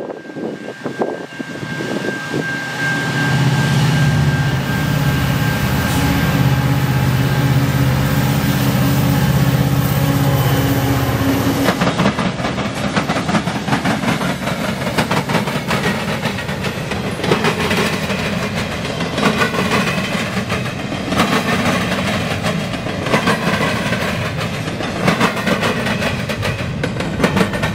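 Ex-Citirail diesel freight locomotives passing close by, their engines droning loudly for about the first twelve seconds. Then comes the rolling clatter of intermodal well cars, with wheels clicking over the rail joints.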